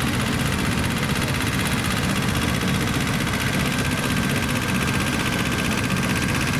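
Tractor engine running steadily at a constant speed, a low, even engine note with no change in revs.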